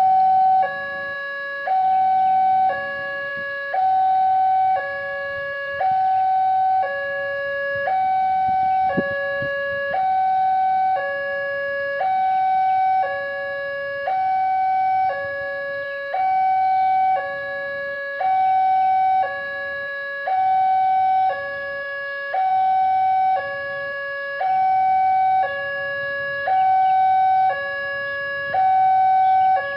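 Electronic two-tone railway warning alarm sounding continuously, a higher and a lower tone alternating, each held just under a second, at a steady level. It is typical of a level-crossing alarm warning of an approaching train.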